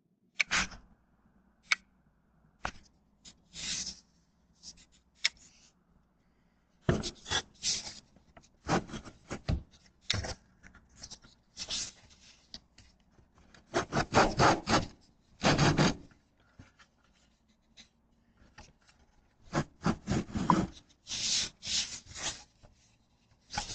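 Irregular bursts of rubbing and scraping over a faint steady low hum.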